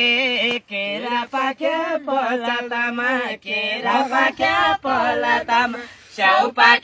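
Unaccompanied singing of a Nepali folk song, in long held, wavering notes broken by short pauses.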